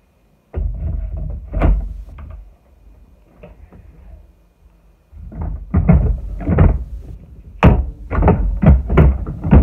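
Irregular knocks and thumps of workshop handling, starting suddenly about half a second in, sparse at first and then coming louder and closer together from about five seconds in.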